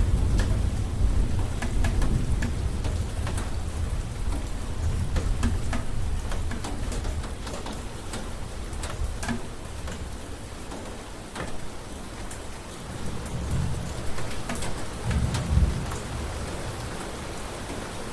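Steady rain with many individual drops ticking sharply, and low thunder rumbling, heaviest in the first few seconds and again swelling about three-quarters of the way through.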